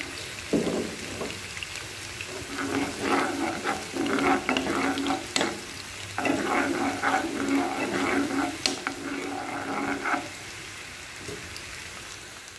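Sliced onions sizzling in hot oil in a non-stick kadai while a steel spoon stirs and scrapes them in repeated strokes. There are two sharp clicks of the spoon on the pan, about five and nine seconds in. The stirring stops near the end, leaving only the sizzle.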